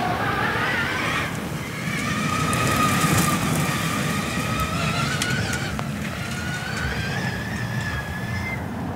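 An electric rallycross car's motor and gearbox whining, rising in pitch as it accelerates and again later, over a steady rumble of tyres on the track.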